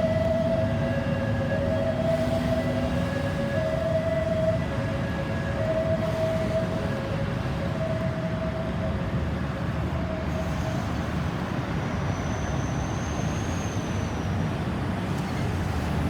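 Ambulance siren in hi-lo two-tone mode, switching between two pitches about once a second, over steady traffic rumble. The siren fades away about ten seconds in, leaving the traffic noise.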